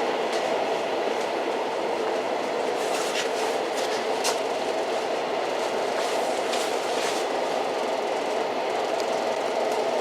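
Old train running steadily, a continuous rumble with scattered light clicks and rattles from the wheels and carriage.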